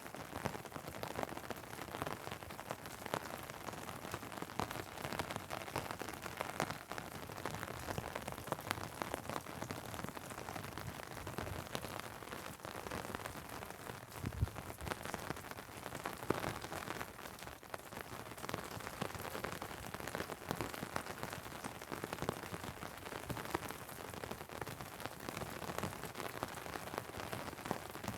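Steady rain pattering on an umbrella overhead, dense fine drops, with rain falling on asphalt around it. There is one low thump about halfway through.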